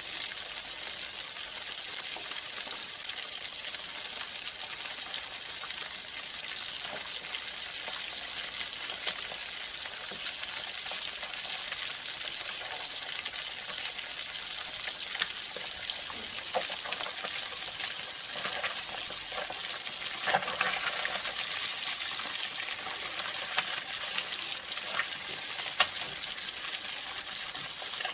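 Fish frying in hot oil in a wok: a steady sizzle with occasional sharp pops of spattering oil, more of them in the second half.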